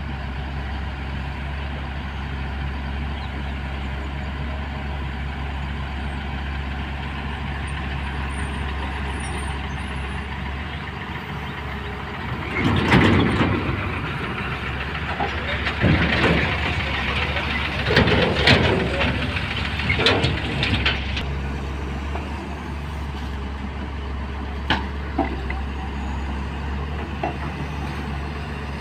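Diesel engine of a Komatsu PC210LC excavator running steadily under work. About halfway through come several louder, rougher stretches of noise as soil from the bucket pours into the steel tipper body, with a few sharp knocks later on.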